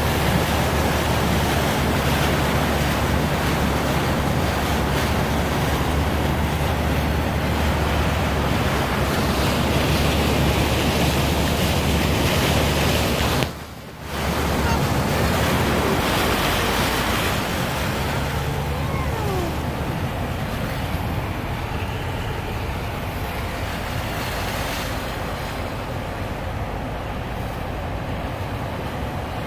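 A car wading through deep floodwater: a steady rushing and splashing of water thrown up beside the wheels, over the low hum of the engine. It cuts out briefly about halfway through, and it is a little quieter near the end.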